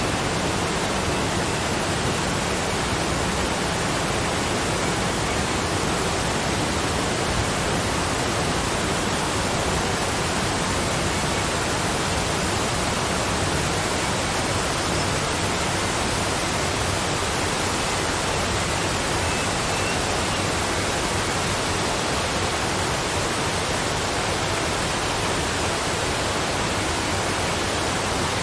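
Waterfall: water falling and rushing in a steady, even roar.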